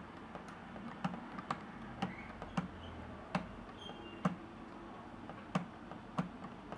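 A run of about eight sharp, irregularly spaced clicks and taps of small hard plastic parts, typical of a netbook's case and components being handled and pried apart.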